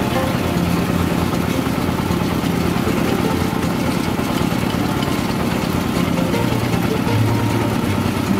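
Homemade rice milling machine running steadily: a continuous mechanical drone with a low hum.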